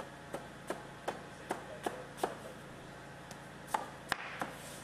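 A mallet tapping a wooden rocker rail into the grooves in the bottom of a Northern White Cedar log rocking chair: seven even taps, about three a second, then a pause and two more taps near the end.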